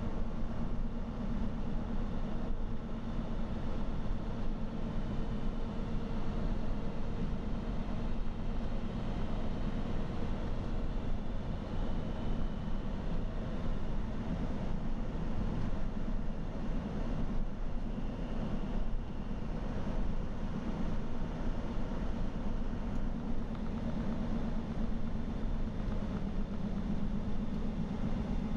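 Steady engine drone and road noise heard inside the cab of a truck cruising at highway speed, with a low hum that holds even throughout.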